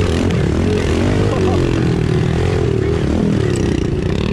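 Kawasaki KLX110 pit bikes' small four-stroke single-cylinder engines running at low speed on a dirt track, the engine note rising and falling with the throttle.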